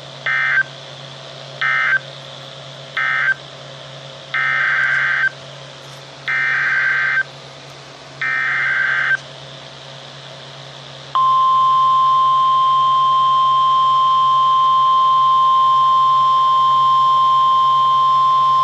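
Emergency Alert System data tones: three short SAME end-of-message bursts close the first flood warning, then three longer SAME header bursts about two seconds apart open the second. A steady single-pitch National Weather Service 1050 Hz attention tone begins about eleven seconds in.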